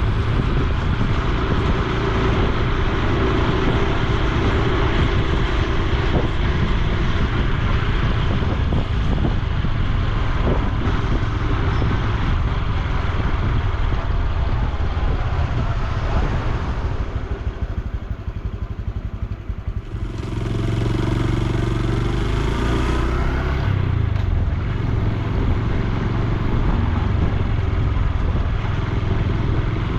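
Honda Super Cub C125's single-cylinder four-stroke engine running under way, with wind on the microphone. Past the middle it eases off and goes quieter for a few seconds, then picks up again and pulls on.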